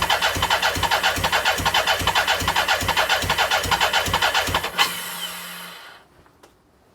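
BMW K100's four-cylinder engine turning over on its electric starter, with a steady rhythmic chugging of about four to five compressions a second, and it doesn't fire: a no-start. The cranking stops about five seconds in and the sound dies away.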